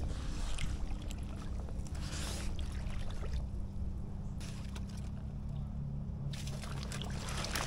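Water swishing and sloshing around a person's legs as he wades through knee-deep floodwater in chest waders, in several swells a second or two apart, over a low steady rumble.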